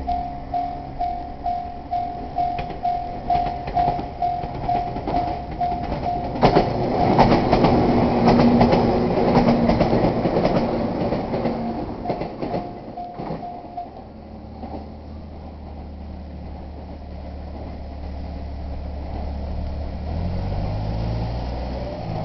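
Japanese railway level-crossing warning bell ringing in a rapid, even pulse while a train passes through, its wheels clattering over the rail joints for several seconds. The bell stops about two-thirds of the way in. A vehicle engine then idles low and rises in pitch near the end.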